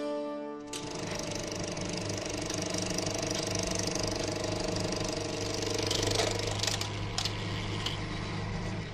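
Music fades out, then about a second in a film projector starts running with a steady whirr and clatter over a constant low hum.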